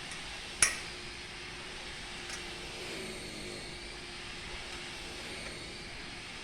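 A single sharp, ringing clink about half a second in, like metal or glass struck once, with a much fainter tick a couple of seconds later, over a steady background hum.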